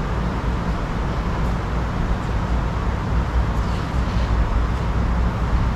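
Steady low hum and rumble of a room air conditioner, unchanging throughout.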